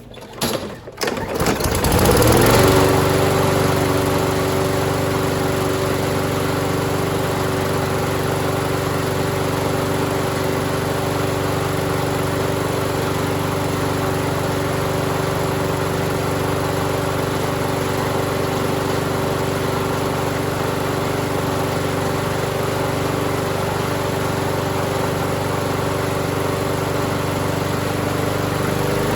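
Walk-behind lawn mower engine starting after a tune-up: a couple of brief sputters, then it catches about two seconds in and runs steadily at a constant speed with its bale clamped back.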